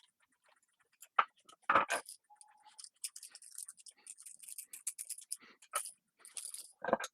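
Handling noise: two sharp knocks about a second in, then a run of light scraping and rustling as small objects such as a cable and plug are moved about on a bench.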